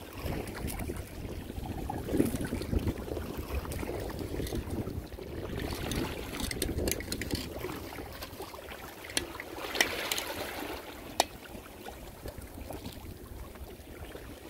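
Wind buffeting the microphone over sea water lapping against rock. A few sharp clicks and knocks come in the second half as a rope is coiled and handled.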